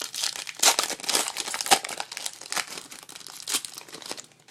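A foil trading-card pack wrapper crinkling and tearing as a 2012 Panini Prestige football card pack is ripped open, in a run of irregular crackles that die away near the end.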